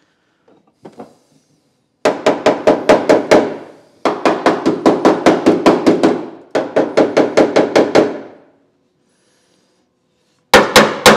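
Rapid hammer blows on a car's sheet-metal body panel while a hydraulic body jack holds it pushed out. Three quick runs of sharp strikes, about six a second, then a short burst of three more near the end.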